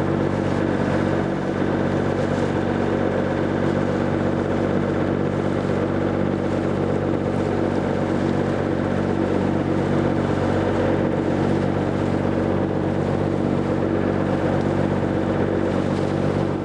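Boat engine running at a steady speed, a constant, unchanging drone heard close up from aboard.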